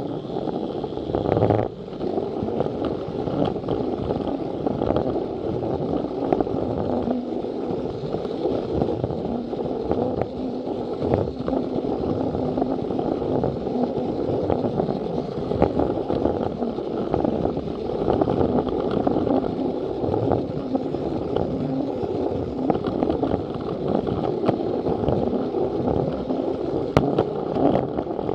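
Battery-powered Plarail toy train running along plastic track, a steady mechanical running noise with scattered clicks as the wheels cross the track joints.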